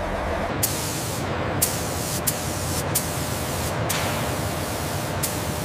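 A steady low machine hum gives way, about half a second in, to the steady hiss of compressed-air paint spray guns, broken by about six sharp clicks spaced roughly a second apart.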